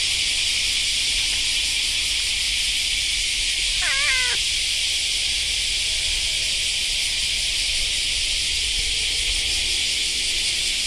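A domestic cat gives one short meow about four seconds in, over a steady high hiss.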